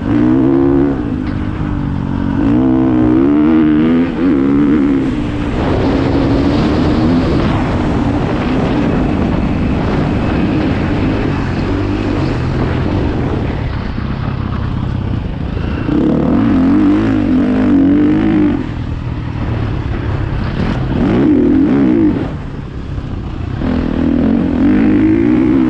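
Dirt bike engine running hard, its pitch rising and falling as the throttle is worked, with several louder revving stretches over a steady rush of noise.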